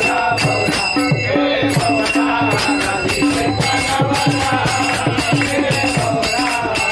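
Men singing a Marathi bhajan together, with brass hand cymbals (taal) clashing and hands clapping in a steady rhythm and a low pitched beat underneath.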